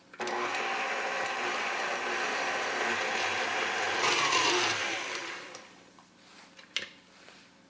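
Electric tilt-head stand mixer running with its dough hook, briefly kneading flour, water and yeast into a dough, louder for a moment about four seconds in, then switched off about five and a half seconds in.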